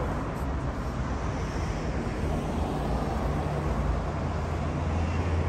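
City street traffic noise: a steady wash of passing vehicles, with a low engine rumble that grows stronger near the end.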